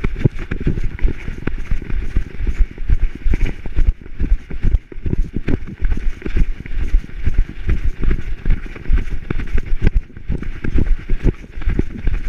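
A dog running fast with a camera strapped to its back: a quick, rhythmic run of heavy thumps from its strides jolting the body-mounted camera, starting suddenly.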